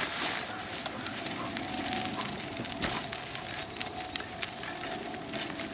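Dog-drawn Chalo sulky rolling along a dirt trail behind a trotting Chinook: a steady rough rolling noise from the wheels with many scattered clicks and ticks.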